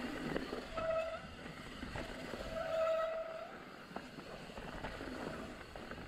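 Mountain bike rolling fast over a rocky dirt trail: steady tyre and wind noise with chain and frame rattle, broken by two short squeals of the disc brakes about a second in and around three seconds in, and a sharp knock from the bike hitting a bump a little later.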